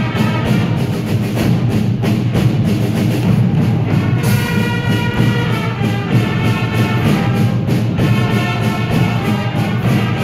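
Fanfare corps playing: brass fanfares holding chords over a steady beat of marching drums, with a short break in the held notes about four seconds in.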